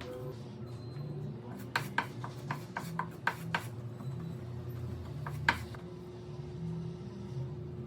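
Background music with a steady low line, with a quick run of sharp taps or clicks about two seconds in and one more louder click about halfway through.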